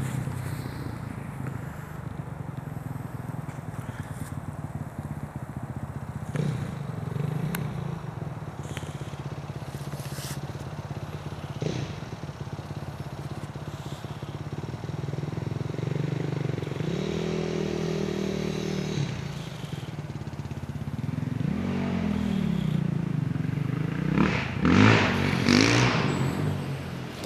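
Dirt bike engine running at a distance: a steady idle, with the revs rising and falling a few times in the second half and loudest near the end. Branches and leaves brush against the microphone.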